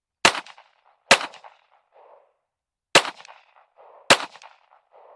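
Taurus TX22 .22 LR semi-automatic pistol firing four single shots at an uneven pace, each a sharp crack with a short echo.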